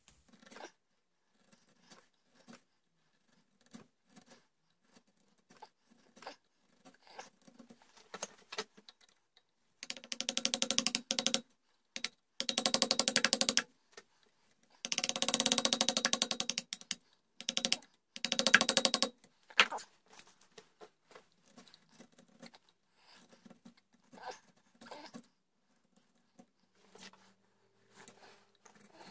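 Hand chisel paring and scraping wood in a rifle stock, cutting the sideplate inlet: short quiet cuts, with four longer, louder scraping strokes between about ten and twenty seconds in.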